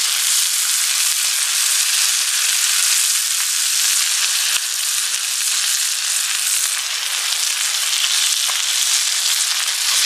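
Sliced bacon and chopped Japanese long onions (naga-negi) sizzling in butter in a cast-iron skillet, a steady frying hiss. A couple of faint taps come from stirring the pan.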